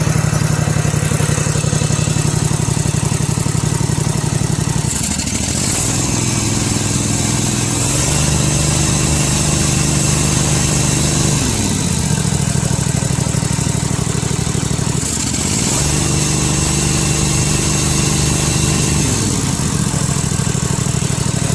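Simplicity riding mower's engine running, throttled up and let back down twice: the newly fitted throttle cable being worked to check the engine responds.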